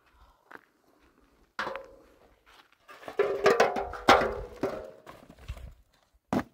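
Containers and a metal tray being handled and set down: a single knock a bit over a second in, then a run of clanks and clicks with a brief metallic ring in the middle, and a sharp click near the end.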